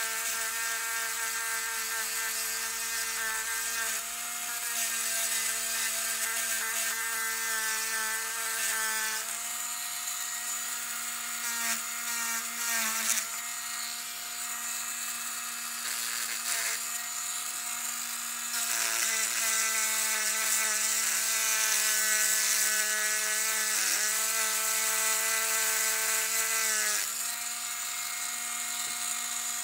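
A 30,000 RPM electric manicure drill with a diamond bit whines steadily as it grinds saw marks and burrs off the edges of a cut silverware fork. Its pitch shifts slightly several times.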